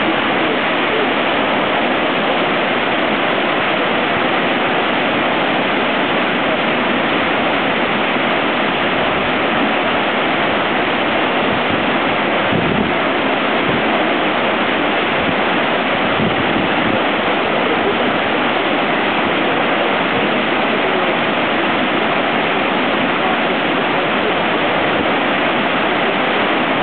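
Fast-flowing water rushing steadily and without letting up, like a small waterfall or stream.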